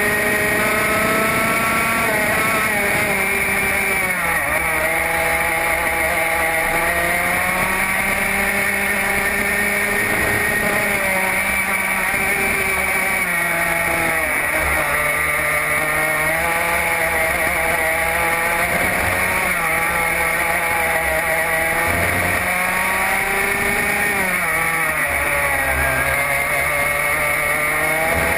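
Racing kart's engine heard close up from the kart itself, its pitch climbing on the straights and dropping away into the corners, over and over through the lap.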